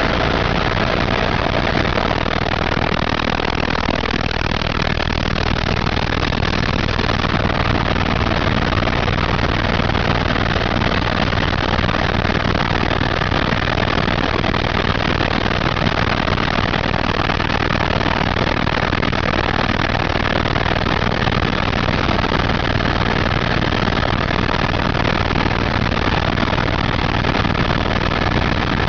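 Helicopter in flight, heard from inside the cabin: a steady, loud, even rotor and turbine noise with a few faint steady whines above it.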